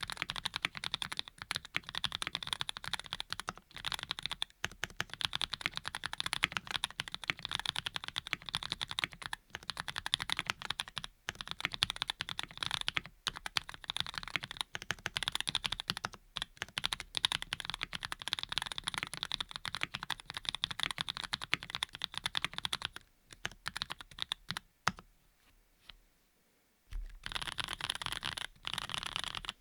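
Fast typing on a Graystudio Think6.5 V2 mechanical keyboard with lubed linear switches (Cherry bottom housings, Cream stems and tops), the keystrokes running in a dense, continuous stream of clicks. The typing thins out and stops for about two seconds near the end, then starts again.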